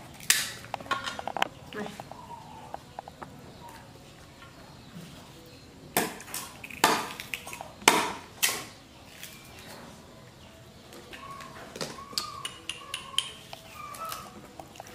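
Meat cleaver chopping and shaving a stick of sugarcane, several sharp chops with the loudest cluster in the middle. Faint short squeaky calls come in between and near the end.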